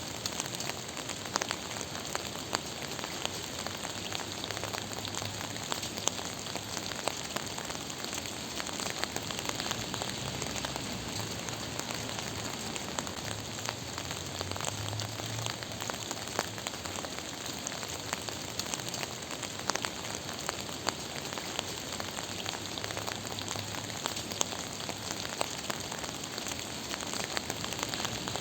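Steady rain falling, a constant hiss with many scattered drop ticks.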